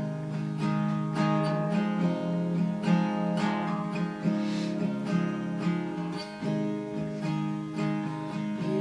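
Acoustic guitar strummed in a steady rhythm, playing the instrumental intro of a song with no singing yet.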